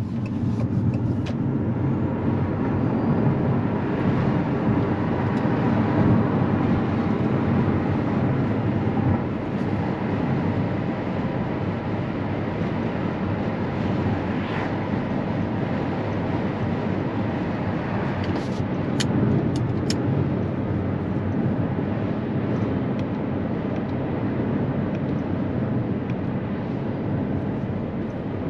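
Abarth 500e electric hatchback on the move: a steady rumble of road and tyre noise, with a few short ticks about two-thirds of the way through.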